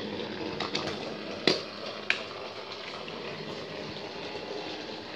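Motorised Thomas & Friends Trackmaster toy trains running, their small motors whirring steadily, with two sharp clicks about a second and a half and two seconds in.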